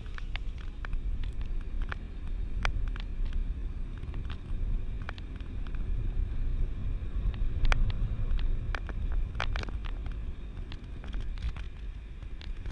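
Car ride heard from inside the cabin: a steady low road rumble, with scattered sharp clicks and rattles at irregular times.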